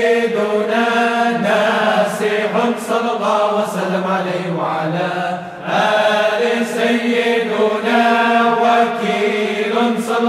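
Islamic dhikr chanting in Arabic: voices intoning long melodic phrases over a steady held low note, with a short pause about five and a half seconds in before the next phrase starts.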